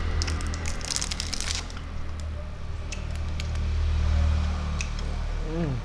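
Clear plastic lollipop wrapper crinkling as it is pulled off for about the first second and a half. Then a few faint mouth clicks as the hard candy is sucked, over a steady low hum.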